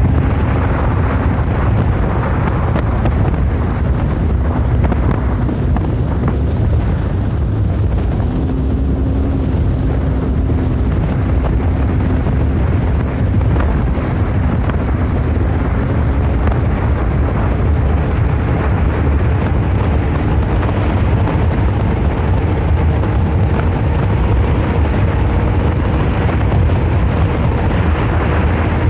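Wind buffeting the microphone of a small boat under way, a steady low rumble, with a faint hum underneath that rises slowly in pitch.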